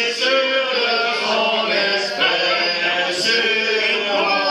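A man singing unaccompanied, with long held notes.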